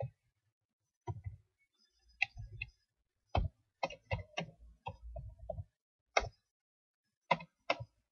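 Computer keyboard being typed on: about a dozen separate key clicks at an uneven pace, some in quick runs and some with pauses of up to a second between them.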